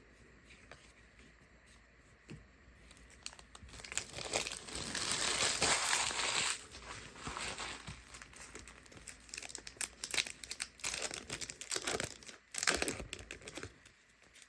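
A plastic trading-card pack wrapper being torn open and crinkled: a quiet start, then a dense rustle for a couple of seconds about four seconds in, followed by scattered crinkles and clicks as the pack and cards are handled.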